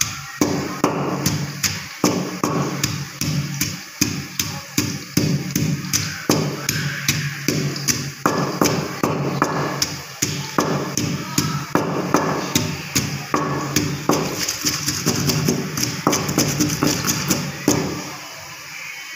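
Wooden pestle pounding green chillies into a paste in a stone mortar: steady dull knocks about two a second, stopping near the end.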